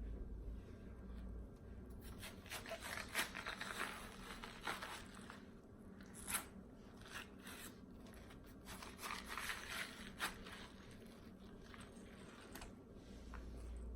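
Biting into and chewing juicy watermelon: wet, crisp crunching in two stretches a few seconds apart, with a few sharp snaps.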